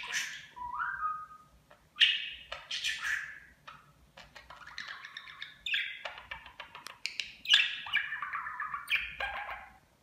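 Budgerigar chattering: quick squeaky chirps and warbled bursts in a busy run, with a short rising whistle about half a second in.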